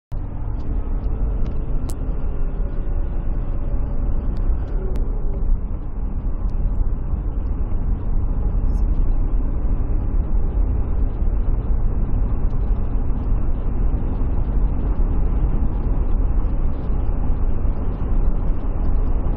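Ford Everest at about 150 km/h heard from inside the cabin: a steady low rumble of road, tyre and wind noise. A faint whine comes and goes in the first few seconds.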